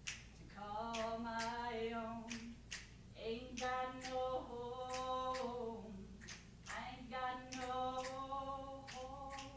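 A woman singing a song unaccompanied in the key of D, holding long notes, with sharp finger snaps keeping time about twice a second.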